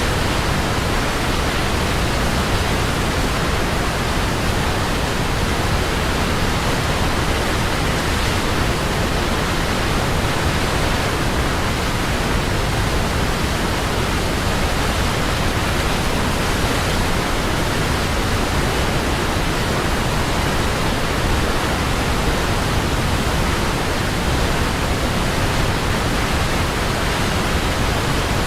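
Waterfall: a steady, unbroken rush of falling water that stays even throughout.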